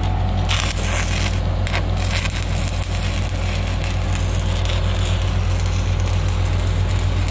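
Stick welding arc (shielded metal arc, 1/8-inch rod) striking about half a second in and then crackling steadily as the bead is run, over a low steady engine hum.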